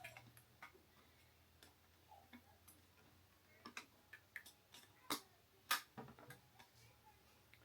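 Faint, irregular clicks and small snaps of a small prying tool working up the metal heat-sink retaining brackets on an Xbox Series S motherboard, with two sharper, louder clicks a little past the middle.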